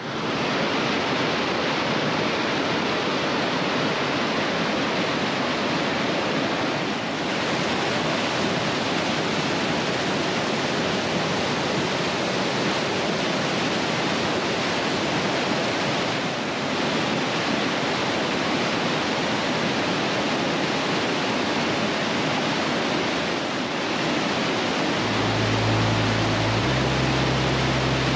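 Mountain creek whitewater and a waterfall rushing steadily over boulders. A low rumble joins about three seconds before the end.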